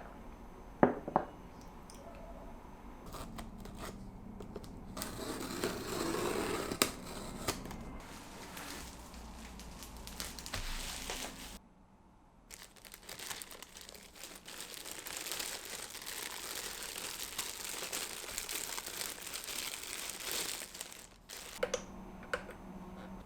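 Packaging being handled and opened: plastic and paper crinkling and tearing, with a few sharp knocks near the start and midway, and a short pause partway through.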